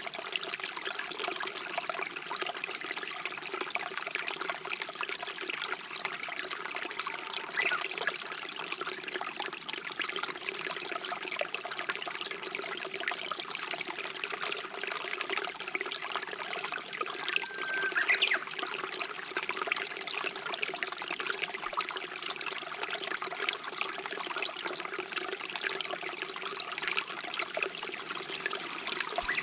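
Stream water running and trickling steadily. A single short bird call, a held note followed by a quick rising flourish, about two-thirds of the way through.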